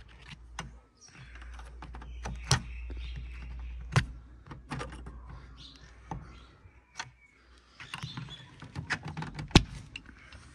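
Flat-blade screwdriver clicking and scraping against a Suzuki Mehran's plastic window winder handle as it is prised off the door panel: a run of sharp, irregular clicks and taps.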